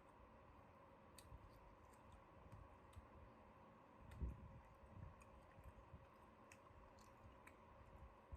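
Near silence with faint eating sounds: scattered small mouth clicks and soft low thuds of chewing fried chicken, the strongest thud about four seconds in, over a faint steady hum.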